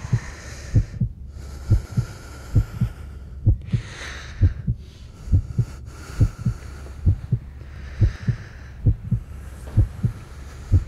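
Heartbeat sound effect: steady double lub-dub beats, about seventy a minute, over a low hum and a soft wash of background noise.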